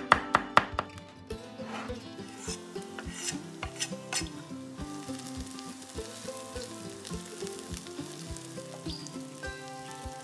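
Food sizzling in a frying pan as it is stirred, over background music with a steady beat. A few sharp knocks, the loudest sounds, come in the first second.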